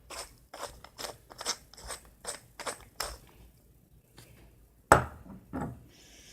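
Pepper grinder being twisted, a quick run of crunching grinds about two or three a second, which stops about three seconds in. Just before five seconds in comes one sharp knock, the loudest sound, followed by a softer one.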